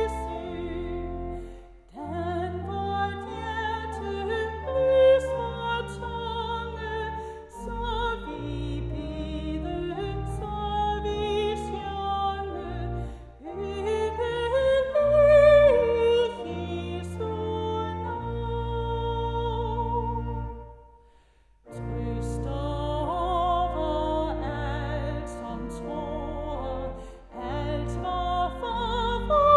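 A woman's solo voice singing a hymn over sustained pipe-organ chords. Both stop for a short break a little over two-thirds of the way through, then start again.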